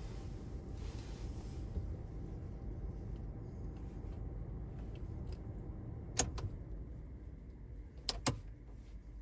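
Low steady rumble of a 2020 Toyota RAV4's 2.0-litre engine idling, heard from inside the cabin. A sharp click comes about six seconds in, and two quick clicks follow near the end as the car is switched off and the rumble fades.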